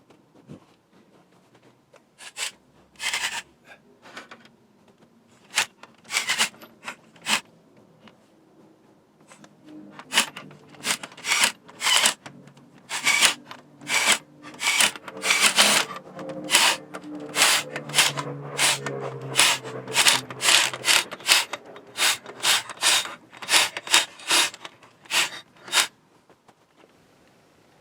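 Hand scraping or rubbing in short repeated strokes: a few scattered strokes at first, then a steady run of about two strokes a second that stops shortly before the end.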